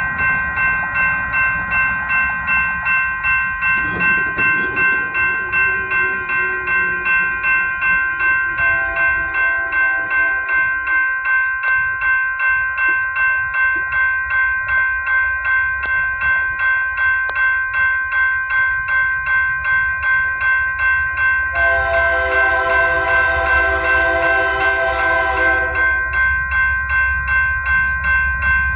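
Grade-crossing bell ringing steadily, about two dings a second, as a train approaches. The lead locomotive's Nathan K3HA five-chime horn sounds faintly around nine to eleven seconds in, then a long blast from about twenty-two to twenty-six seconds, with a low locomotive rumble building toward the end.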